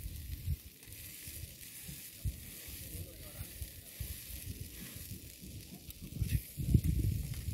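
Steady high hiss from a portable gas camping stove with a pan on it, under gusts of wind buffeting the microphone that grow stronger near the end.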